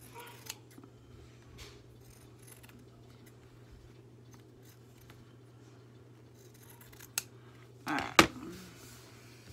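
Scissors snipping along the edge of a paper page, trimming off a thin strip: a few short crisp cuts in the first few seconds. About eight seconds in there is a louder clatter.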